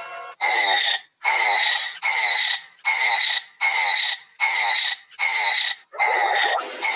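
Barney Gumble, the cartoon character, burping in a rapid run of about eight short, loud belches, one starting about every 0.7 seconds.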